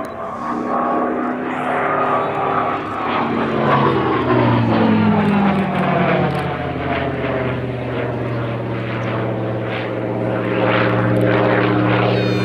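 Hawker Sea Fury T.20's Bristol Centaurus 18-cylinder sleeve-valve radial engine and propeller in flight: a loud drone whose pitch falls as the aircraft passes overhead, a few seconds in, then holds steady and lower.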